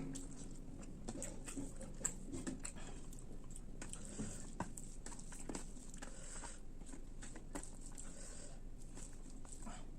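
A person chewing and eating rice with spicy fish roast close to the microphone: irregular wet mouth clicks and smacks.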